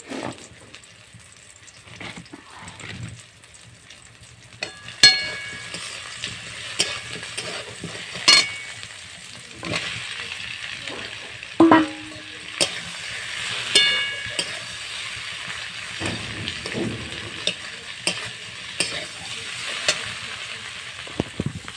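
Food frying in hot oil in a pan, sizzling while a metal spatula stirs it, scraping and clinking against the pan with a few ringing strikes. The sizzle sets in about five seconds in with a loud clang.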